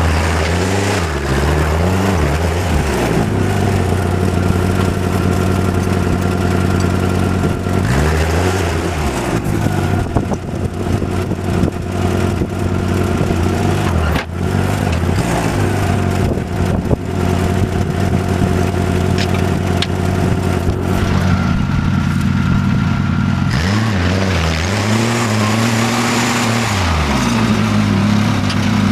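Tractor engine running steadily, its speed rising and falling a few times as it is revved up and eased back while working to lift the backhoe attachment.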